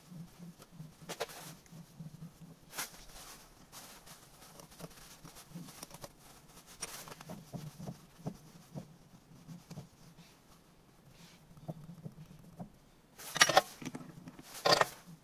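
Light clicks and knocks of hand tools and metal parts being handled at a lathe, with a louder clatter about 13 seconds in and another sharp knock just before the end.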